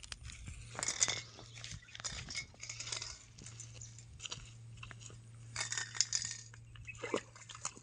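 Handling noise: irregular rustling, crunching and light clinking as fishing lines and tins are handled.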